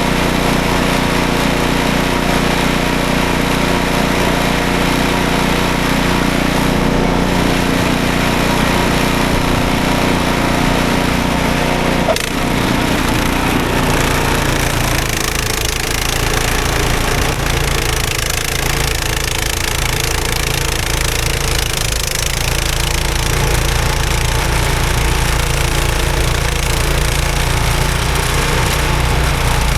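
Snowblower's small engine running steadily, with a single sharp knock about twelve seconds in; shortly after, the engine note drops lower.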